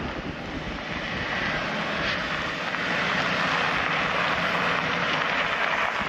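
Wind rushing over open ground and across the microphone, a steady noise that swells about halfway through.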